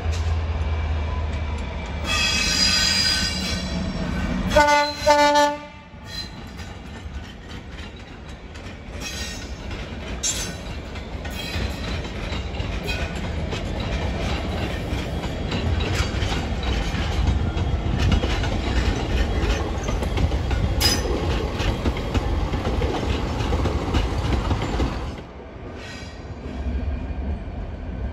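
GB Railfreight Class 66 diesel locomotives pass with their two-stroke V12 engines running, and a train horn sounds, with a short, loud blast about five seconds in. Then a rake of empty box wagons rolls by with a steady rumble and wheels clicking over rail joints. Near the end the sound drops suddenly to a quieter diesel engine note.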